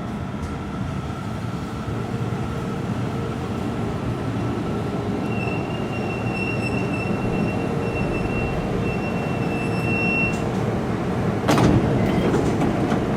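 A Seibu Shinjuku Line electric train pulling into the platform, its running noise growing louder. A thin high brake squeal is held for about five seconds and stops as the train halts. A short loud burst of noise follows near the end.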